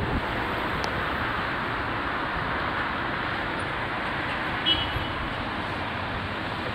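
Steady city street noise of cars and a light-rail tram passing on the road and tracks below. A brief high squeak about two-thirds of the way through is the loudest moment.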